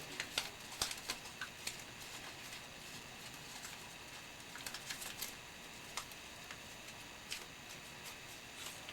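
Paper being creased and folded by hand into an inside reverse fold: soft crinkling with irregular crisp ticks, a cluster in the first second and more around five seconds in.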